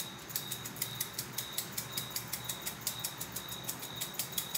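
Hand-twisted spice grinder grinding toasted garlic, its ratcheting head giving rapid, even clicks, about six or seven a second.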